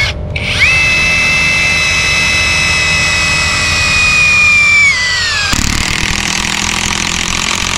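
Cat DX12 18-volt brushless cordless impact driver driving a long screw into a wooden log: a steady high motor whine that drops in pitch about five seconds in as the screw bites deeper, then gives way to the dense rattle of the impact mechanism hammering the screw home.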